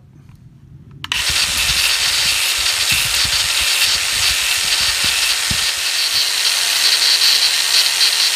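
Angle grinder switched on about a second in and running steadily, its disc grinding the burr off the freshly cut end of a small screw fastener.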